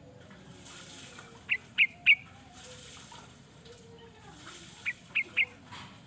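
Sooty-headed bulbul (kutilang) calling: a quick run of three short, clear notes about a second and a half in, and another run of three near the end.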